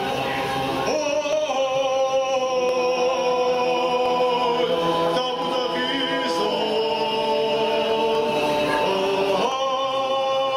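A small group of men singing an Ossetian song a cappella in several parts, holding long notes in harmony that change together every few seconds.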